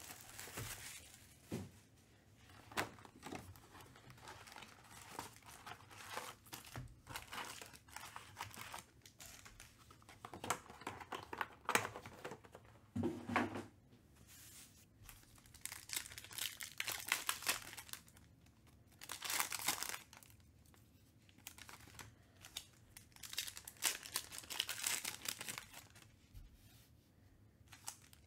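Plastic shrink wrap crinkling and tearing as it is stripped from a box of trading cards, then foil card packs rustling and being torn open, in irregular bursts.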